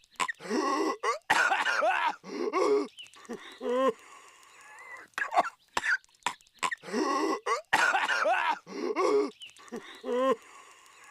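A cartoon character's exaggerated, voiced coughing and hacking fit, in loud rasping bursts with short gaps between them. The same stretch of coughing repeats about every six and a half seconds, as a loop.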